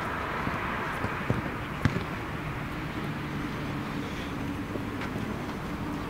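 Steady outdoor background hiss, with sharp knocks of a soccer ball being kicked, two of them about half a second apart between one and two seconds in.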